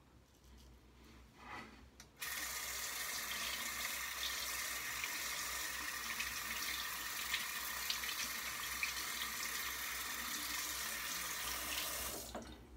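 Water running from a bathroom sink tap, turned on about two seconds in and running steadily for about ten seconds before it is shut off near the end, with a few small splashes and clicks as things are rinsed under it.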